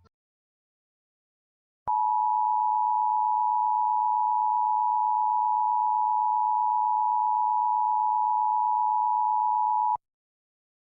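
Emergency Alert System attention signal: a steady two-tone beep (853 and 960 Hz) sounds for about eight seconds, starting about two seconds in and cutting off abruptly. It is the alarm that heralds an emergency broadcast message.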